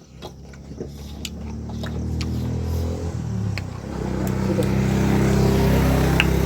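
A motor vehicle's engine approaching and growing steadily louder over the first few seconds, then running loud and steady close by.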